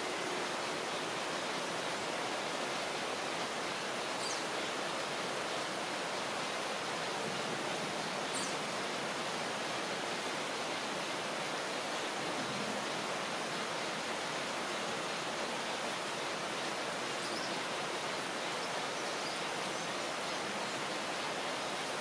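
Rainforest ambience: a steady, even hiss with a few faint, short, high chirps scattered through it.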